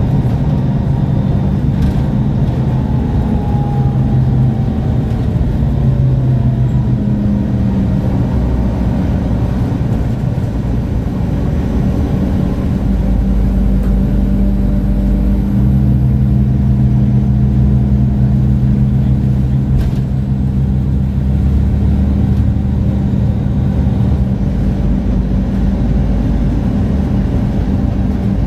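Diesel engine of a MAN Lion's City G articulated bus running under way, a steady deep drone whose pitch shifts up and down several times, with a few falling whines early on.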